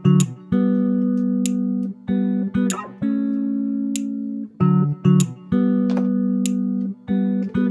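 Background music: plucked guitar playing a repeating melodic phrase with a steady beat.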